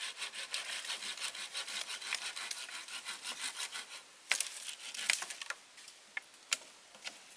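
A hand pruning saw cutting through a thin wooden branch in quick back-and-forth strokes for about four seconds. Then comes a sharp crack, followed by a few scattered knocks of wood.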